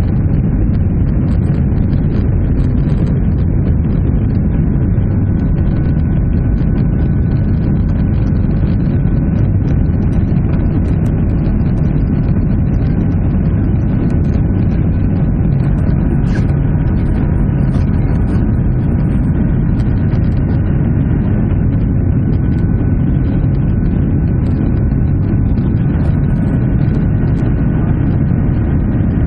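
Boeing 737-800 cabin noise: the CFM56 turbofan engines and airflow making a loud, steady low rumble with a faint steady hum above it.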